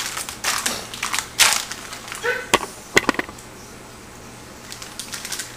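Rustling, crunching handling noises with two sharp clicks a little after halfway, as the camera is picked up and turned around by hand; then only a low steady background.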